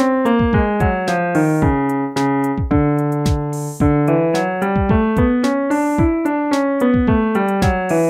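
Piano playing quick note-by-note scale runs that climb and fall, with a held chord between runs: the accompaniment for a nine-note scale vocal exercise.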